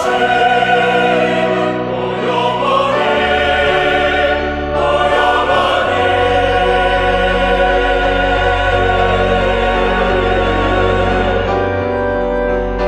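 Mixed choir singing a slow sacred-style piece with piano and organ accompaniment; a steady low bass note comes in about halfway through and is held.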